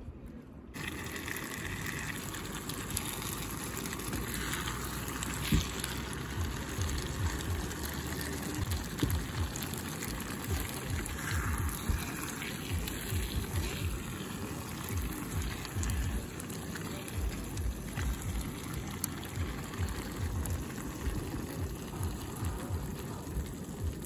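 Rushing water, a steady hiss that starts abruptly about a second in, with irregular low thumps running under it.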